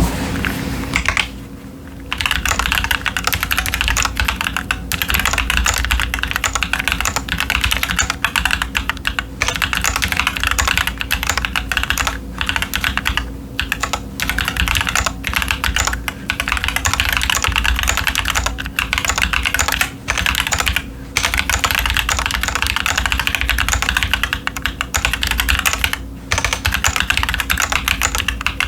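Steady, fast typing on a Keychron Q10 mechanical keyboard with TTC Chaotic Panda tactile switches and Cherry-profile doubleshot ABS keycaps: a dense run of key clacks with a few brief pauses.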